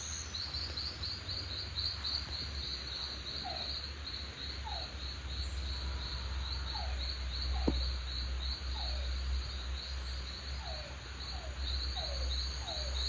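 Insects chirping in a fast, even high-pitched pulse, with a lower short falling call repeated about once a second from a few seconds in. A low rumble runs underneath, and a single sharp click sounds about eight seconds in.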